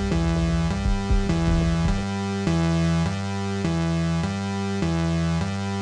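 Electronic synthesizer music. A low beat runs under it for the first two seconds, then drops out, leaving held synth notes that change about every half-second.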